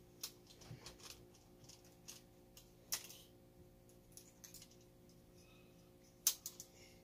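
Faint, scattered small clicks and taps of a screwdriver and screw against the metal chassis parts of an RC monster truck, with the sharpest click about three seconds in and a quick cluster of clicks just after six seconds.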